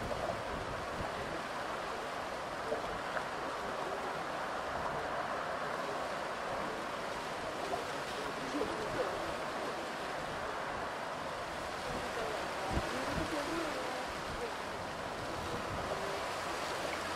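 Distant Airbus A330-900's Rolls-Royce Trent 7000 turbofans at takeoff thrust: a steady, even rushing roar as the jet rolls down the runway, lifts off and climbs away.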